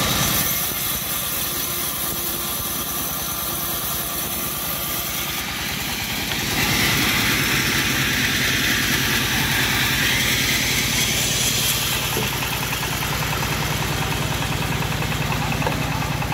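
The engine driving a homemade bandsaw mill runs steadily with a fast, even pulsing. From about six to twelve seconds in, a louder, higher hiss joins it as the blade cuts through wood.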